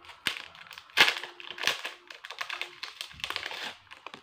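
Thin clear plastic packaging crinkling and crackling as it is handled, in irregular bursts that are loudest about a second in.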